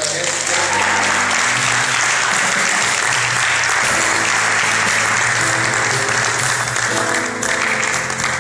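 A congregation's applause breaks out suddenly and carries on over steady instrumental music, thinning near the end.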